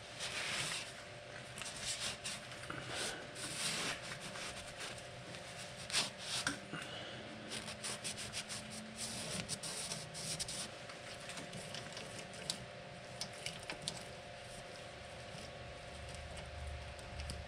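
Cloth shop rag rubbing and wiping inside the end of a rear axle tube and its bearing, in irregular strokes with a few light clicks, over a faint steady hum.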